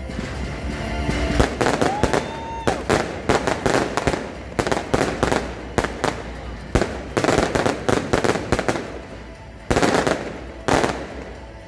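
Firework battery cakes firing: a rapid, irregular run of sharp bangs and crackles, with a brief rising whistle about two seconds in and two heavier bangs near the end.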